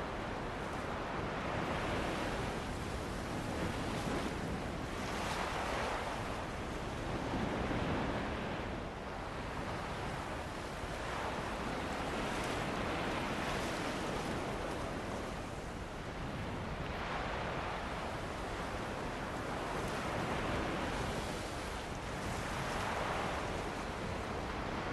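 Ocean waves breaking and washing onto a beach, with wind blowing; the surf swells and eases every few seconds.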